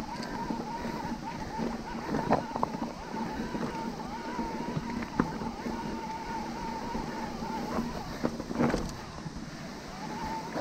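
Mountain bike rolling over a rough trail: rattles and knocks over wind noise, with a steady whining tone that breaks off for a couple of seconds near the end and then returns.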